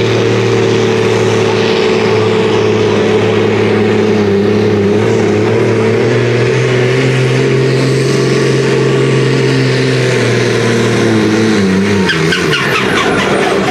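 Fendt pulling tractor's diesel engine running flat out as it drags a weighted pulling sled, a loud steady engine note. About twelve seconds in, the pitch falls as the engine slows.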